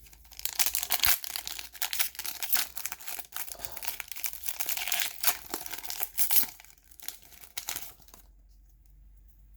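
Foil wrapper of a Pokémon trading card booster pack crinkling and tearing as it is worked open by hand, a stubborn pack that takes a long stretch of ripping; the crinkling stops about eight seconds in.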